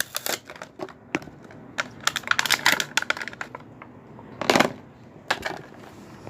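Slime kit box being opened by hand: a run of sharp clicks and crackles of packaging, busiest about two to three seconds in, with a louder rustle about four and a half seconds in.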